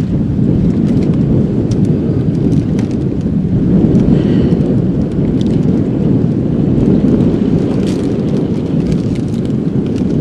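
Strong wind buffeting the microphone: a loud, steady rumble, with a few faint clicks over it.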